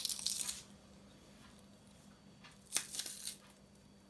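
Garlic cloves squeezed through a metal garlic press, in two short bursts: one at the start and another just under three seconds in.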